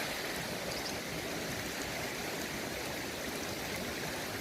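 Creek water running steadily, an even rushing noise.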